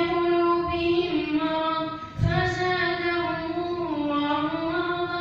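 A boy's voice reciting the Quran in slow, melodic chant, drawing out long held notes, with a short breath about two seconds in.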